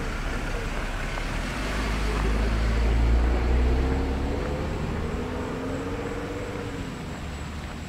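A motor vehicle driving past on the road, its engine and tyre noise growing to its loudest about three seconds in and then fading away.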